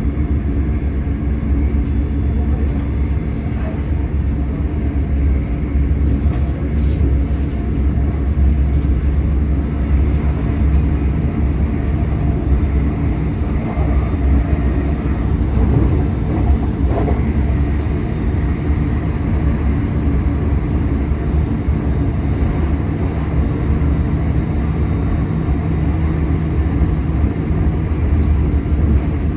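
Class 385 electric multiple unit running at a steady speed, heard from inside the carriage: a loud, steady low rumble of the running gear and traction motors with a constant hum that neither rises nor falls.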